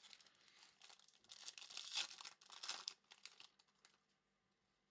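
Faint rustling and crinkling of trading cards and their foil pack wrapper being handled. It is busiest about two seconds in and dies away before the end.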